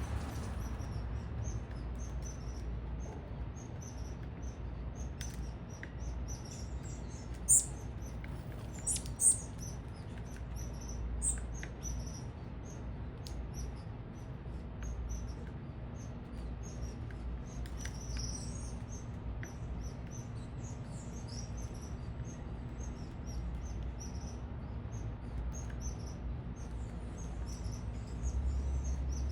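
Small birds at a feeder chirping: many short, high chirps throughout, a few of them louder about eight and nine seconds in, over a steady low background rumble.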